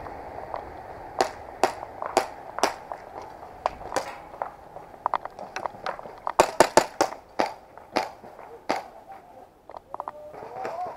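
Airsoft guns firing: a string of sharp snaps, at first spaced out, then a quick burst of about eight about six seconds in, followed by a few more single shots.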